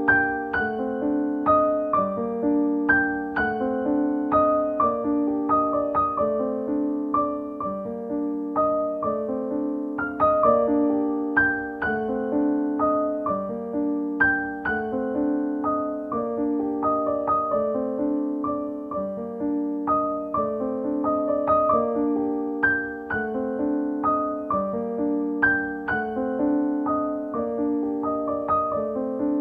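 Background piano music, a gentle, steady run of single notes and chords.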